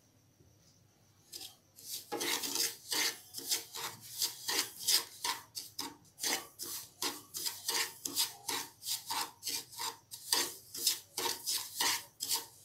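Wooden spatula scraping and stirring semolina around a nonstick kadhai while the semolina roasts in a little oil, in short even strokes about two to three a second, starting about two seconds in.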